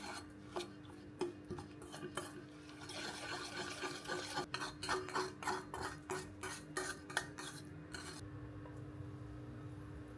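A utensil stirring pancake batter in a bowl, clinking against it: a few separate clinks, then quick, steady stirring strokes from about three seconds in that stop about eight seconds in. A steady low hum runs underneath.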